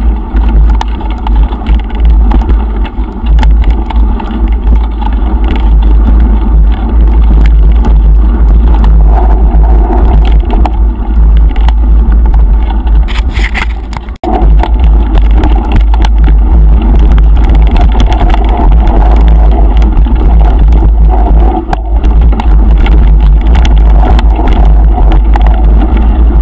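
Loud, low wind rumble buffeting the action camera's microphone as a mountain bike speeds down a dirt forest trail, with the tyres and bike frame rattling over the bumps. The sound dips and cuts sharply about halfway through.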